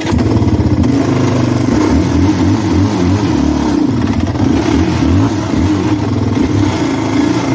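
2003 Yamaha Raptor 660R single-cylinder four-stroke engine revved hard as the quad pulls away, the revs rising and falling unevenly. It will only move off when revved this hard and bogs on gentle throttle, which the owner takes for probably dirty carburetors.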